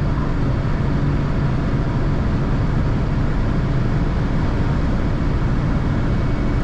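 Cabin sound of a 1988 Mercedes 260E W124 at about 200 km/h near its top speed. Its 2.6-litre straight-six runs steadily at high revs as the car pulls slowly toward its maximum. Heavy wind and road noise blend in, steady throughout.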